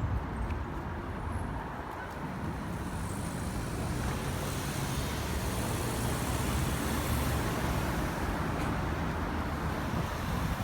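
Road traffic: a steady wash of passing cars that swells gently toward the middle and eases off slightly near the end.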